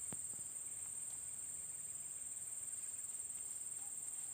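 Insects trilling in a steady, high-pitched chorus, with a faint click just after the start.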